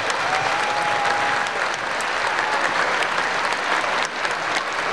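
A crowd applauding steadily, with a short whistled note about a second long near the start.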